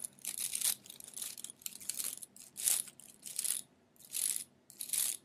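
Fingers scratching and rubbing close to the microphone, standing in for a scalp massage: a run of short, scratchy strokes, roughly one every three quarters of a second.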